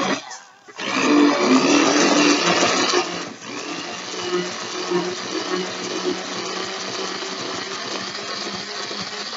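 Handheld immersion (stick) blender running on its lowest setting, whirring steadily as it mixes a thick liquid in a plastic bowl. It starts about a second in, is louder for the first couple of seconds, then settles into a quieter, even hum.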